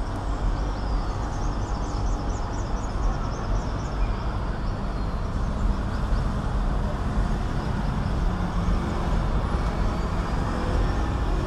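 Steady street traffic: a continuous rumble of cars and motorbikes on the road.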